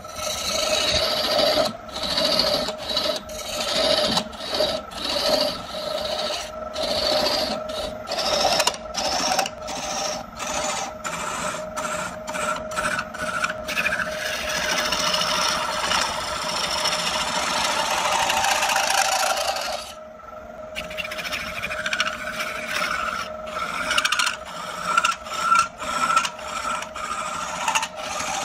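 A tool rasping against wood turning on a lathe, in repeated strokes of about a second over a steady whine. The strokes run together into one long pass past the middle, break off briefly about two-thirds through, then start again.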